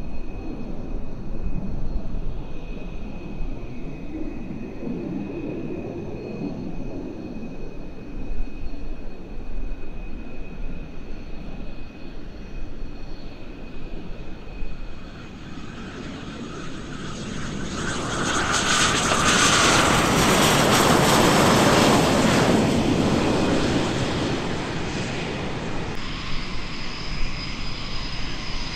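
SEPECAT Jaguar's twin Adour turbofans: a distant steady jet rumble that swells to a loud hissing roar with a whine as the jet passes close on the runway, then fades. Near the end, a steady high-pitched turbine whine of a Jaguar rolling slowly by.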